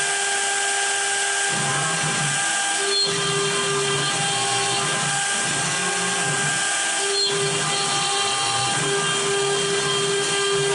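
3 kW air-cooled CNC router spindle running with a steady high whine while a V-bit engraves a hardwood board. The cutting noise sets in about a second and a half in and comes and goes as the bit moves along the letters.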